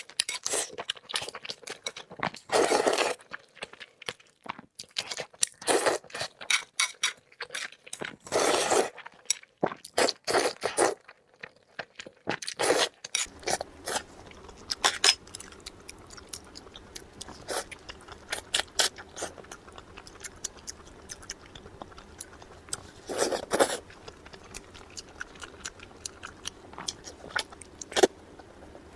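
A person chewing and biting into food, with many short, irregular crunching and clicking noises. A low steady hum comes in partway through.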